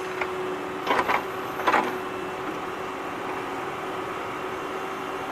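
Small electric gear motor of a homemade toy excavator running with a steady whir, with two short louder rattles about one second and just under two seconds in.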